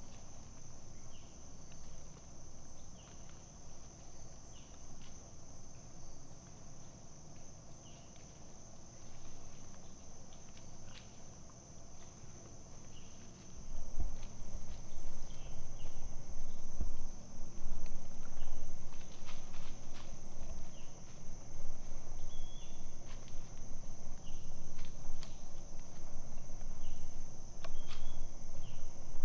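Insects droning in a steady high-pitched chorus, with faint short chirps about once a second. About halfway through, a low rumble comes in and becomes the loudest sound.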